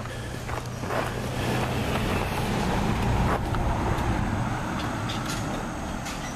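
An SUV towing a travel trailer drives past and away down the mountain road, its engine hum and tyre noise swelling to a peak about halfway through and then fading. It is rolling downhill on its brakes, which the onlooker takes for the driver not having it in a low gear.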